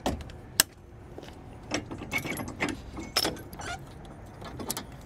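Metal clinks and clanks of a Roadmaster tow bar being unhooked from a vehicle's base plate: a sharp clank about half a second in, then a run of jingling rattles of pins, clips and cable hooks.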